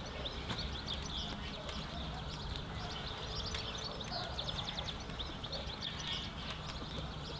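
Small birds singing in quick, repeated high chirps and trills over a low, steady outdoor rumble, with a few sharp clicks.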